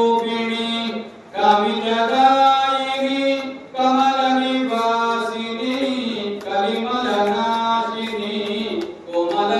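A single voice chanting puja mantras in long held phrases of two to three seconds each, with short breaks for breath between them.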